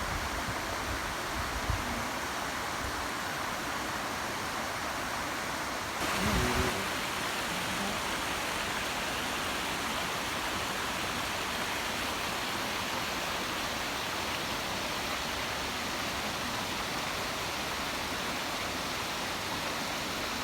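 Waterfall rushing, a steady even noise. About six seconds in it turns brighter and slightly louder, with a brief low thump.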